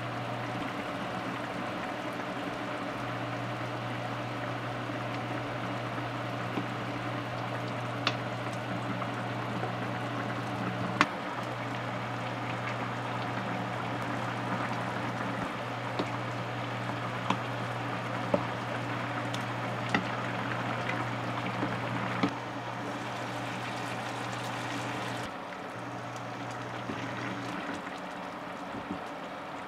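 A pot of spicy braised pork ribs in red sauce bubbling at a steady boil, with a steady low hum that stops near the end. Several sharp clicks of utensils against the pot come through the middle.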